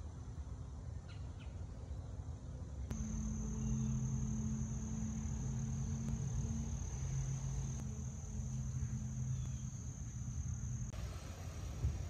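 Crickets trilling steadily on one high note, with a low steady hum and rumble underneath. The trill starts about three seconds in and stops about a second before the end.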